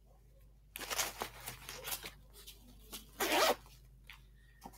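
Rummaging through a bag: rustling and handling noises in a few irregular bursts, with scattered clicks.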